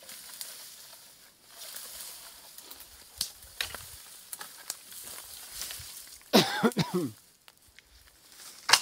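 Dry dead branches and brush rustling and crackling as they are pulled and dragged through dry grass. About six seconds in there is a loud creak of bending wood that falls in pitch, and near the end a sharp snap.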